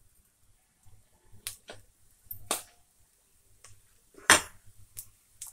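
A handful of sharp clicks and knocks from handling a nonstick frying pan holding garlic cloves in shallow, not yet sizzling oil. The loudest is a knock about four seconds in.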